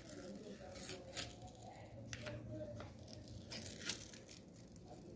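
Wrapping being peeled slowly off an e-bike battery pack: a run of short tearing crackles, with about half a dozen sharper rips scattered through it.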